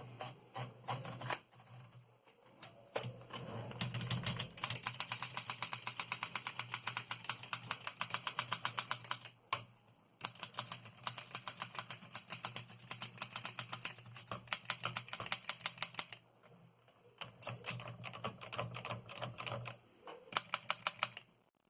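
Keys of a 1927 Continental Standard manual desk typewriter being typed in quick, even runs of mechanical clacks, several strokes a second. There are two brief pauses, about nine and a half and about sixteen seconds in.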